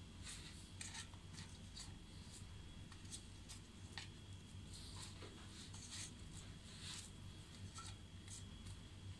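Faint, scattered small clicks and rustles of hands pinching slices off a rolled poppy-seed dough log and pressing them into a greased metal baking pan, over a steady low hum.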